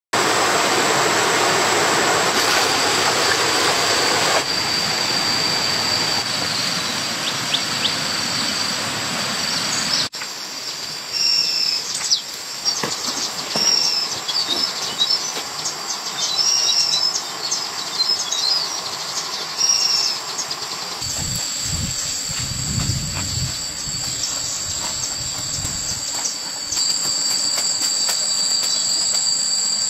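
Forest ambience dominated by a steady high-pitched insect drone. Rushing water noise at the start, scattered bird chirps in the middle, and low thuds near the end.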